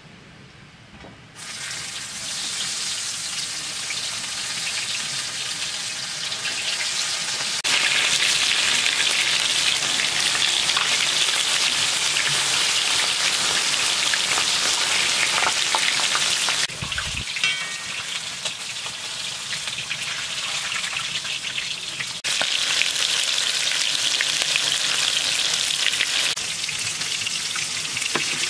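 Floured fish pieces frying in hot oil in a wide, shallow pan: a dense, steady sizzle. It starts about a second in and gets louder in sudden steps, with a short dip partway through.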